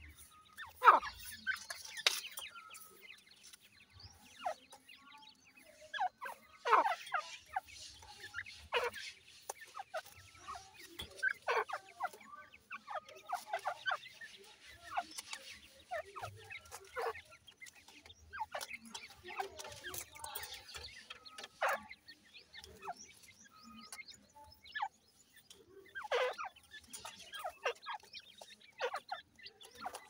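Francolin chicks and their hen calling: an irregular scatter of short, sharp peeps and clucks, each falling in pitch, with brief quiet gaps between.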